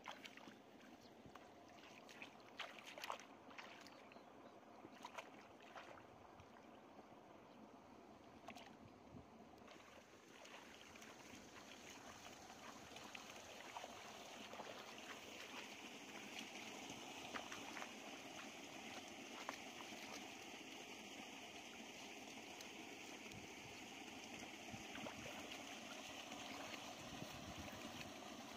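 Faint splashing and sloshing of shallow, muddy water as someone wades and gropes in it with their hands. Scattered small splashes come in the first ten seconds, then a steady faint hiss builds underneath.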